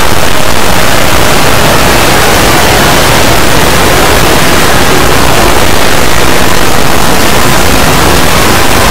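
Very loud, steady, harsh static-like noise with no clear tones: an Emergency Alert System alarm recording sped up and distorted so far that its tones have dissolved into noise.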